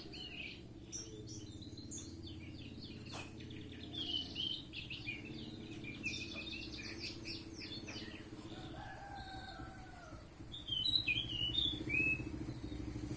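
An anis macan thrush singing a varied song of quick chirps and rapid trilled phrases, with a louder burst of notes near the end, over a steady low hum.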